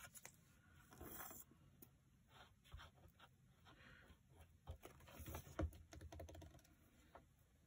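Near silence with faint, scattered taps and clicks of hands handling craft materials on a cutting mat, including a plastic glue bottle being picked up and set down.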